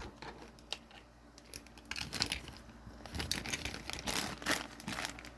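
Plastic toy bag crinkling and rustling as it is handled, in irregular small crackles.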